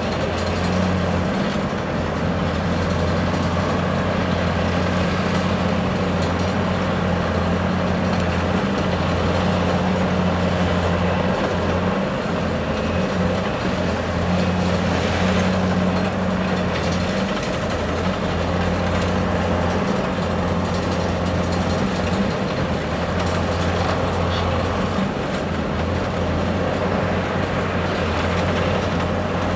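Hyundai R520LC-9A excavator's diesel engine running steadily with a deep hum that wavers slightly now and then.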